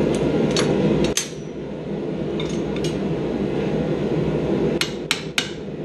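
Metal tools clinking as they are picked up and handled, then three quick hammer blows on hot steel near the end, over a steady low rumble.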